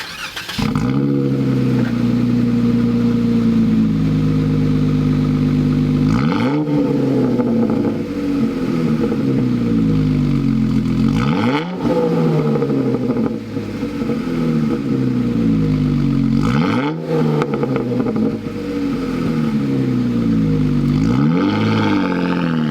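Jeep Wrangler JK's 3.6-litre Pentastar V6 running through an AWE Tread Edition twin-muffler axle-back exhaust, starting about half a second in. The engine note rises sharply about four times and each time sinks back slowly.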